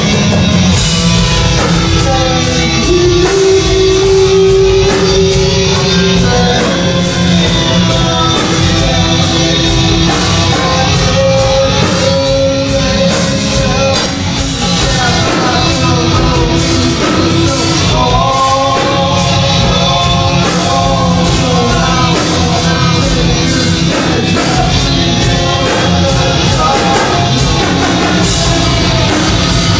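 Heavy metal band playing live: electric guitar, bass guitar and drum kit, with a singer's vocals over them.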